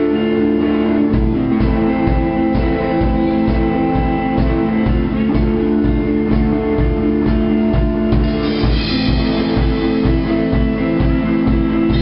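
Live rock band playing without vocals: electric guitars holding chords, with the drums coming in about a second in on a steady kick-drum beat. Cymbals get brighter from about eight seconds in.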